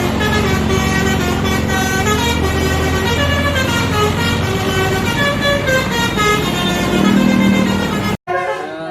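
Bus 'telolet basuri' musical horn playing a tune of quickly changing, sometimes gliding notes over a steady low hum. It cuts off suddenly about eight seconds in, and another horn tune starts straight after.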